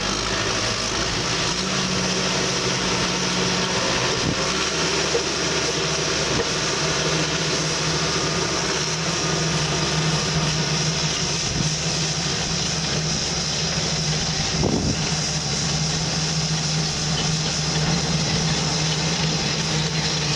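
Bulldozer's diesel engine running steadily, its note shifting a few seconds in, with a few short knocks along the way.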